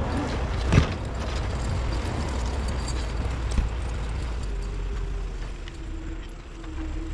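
Forestry skidder's diesel engine running steadily, with a sharp knock about a second in and scattered clanks. A steady whine comes in about halfway.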